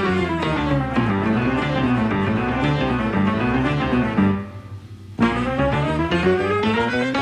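Background music with melodic instrumental lines. It drops out for about a second near the middle, then comes back in.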